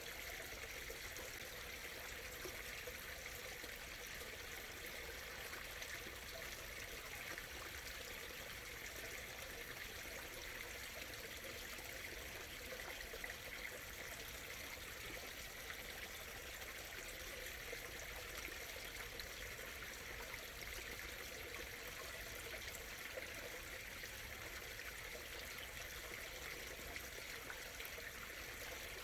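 Small stream murmuring and trickling over stones, steady and unbroken.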